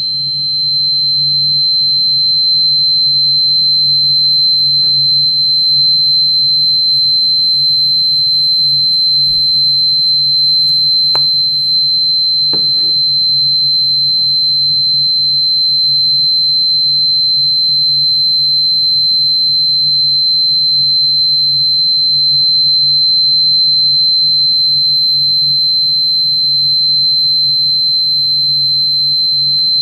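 Steady, loud, high-pitched electronic sine tone that holds one unchanging pitch throughout, with a low steady hum beneath it. Two faint clicks come about eleven and twelve and a half seconds in.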